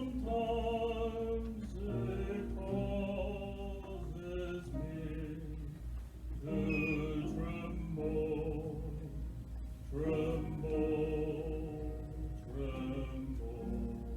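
Choir singing a slow sacred song in phrases of long held notes, over a steady low hum.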